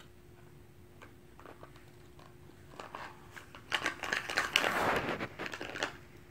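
Handling noise: a crinkling, crackling rustle close to the microphone that starts about three seconds in and lasts about three seconds. A few faint clicks come before it.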